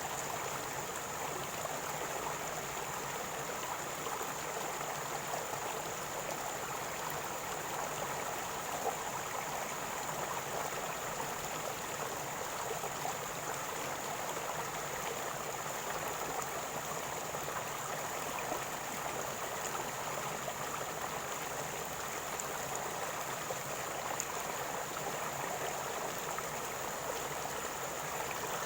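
River water gurgling and running steadily, an even rush without pauses, with a faint steady high hiss above it.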